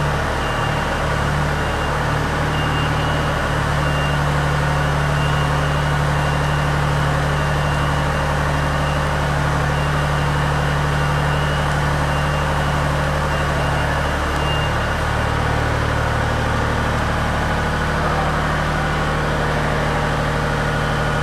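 Engine of an articulating boom lift running steadily while it holds and positions a hoisted load, its note dropping slightly about two-thirds of the way through. A faint repeated high beep sounds over it.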